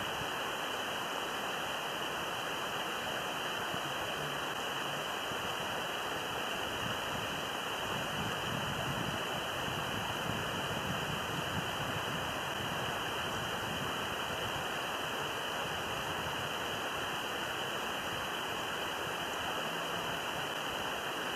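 A steady, even rushing noise with no distinct events, swelling slightly in the low end about eight to twelve seconds in.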